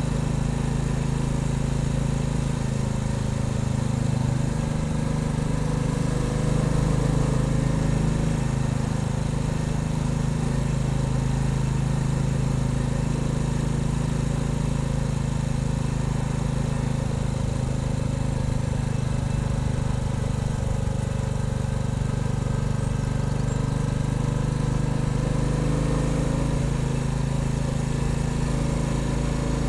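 Royal Enfield Bullet 350's single-cylinder engine running steadily under way, its pitch shifting slightly a few seconds in and again near the end, over a steady hiss of road and wind noise.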